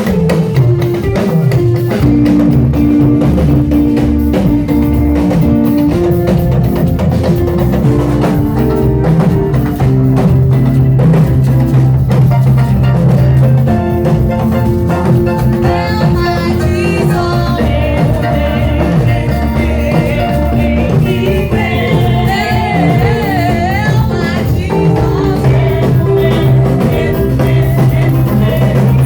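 Loud live gospel praise music: a band with drum kit, bass and guitar playing a steady beat, with voices singing over it from about halfway through.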